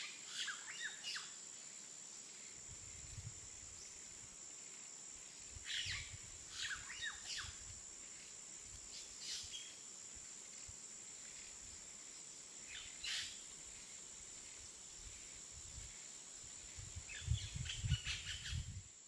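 Birds calling faintly in short chirps every few seconds, with a cluster near the end, over a steady high-pitched tone and intermittent low rumbles.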